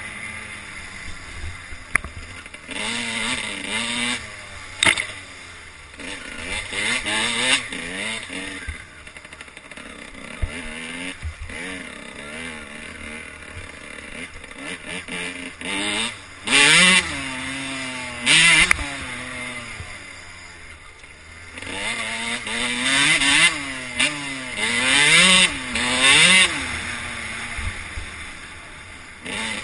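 Dirt bike engine revving up and down again and again as it rides a motocross track, with a few short, very loud full-throttle blasts in the middle and later on, over a steady rush of wind on the helmet-mounted microphone.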